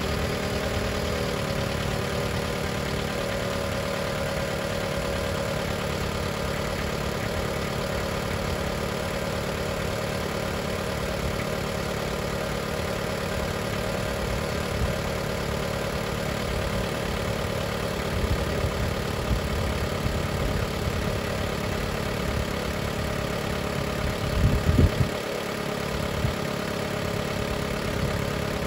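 Car engine idling steadily just after being started, heard from the open engine bay. A brief low thump stands out near the end.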